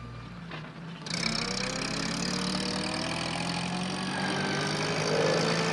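Small van engine running as the van drives along, fading in about a second in and growing a little louder, with a slight rise in pitch near the end.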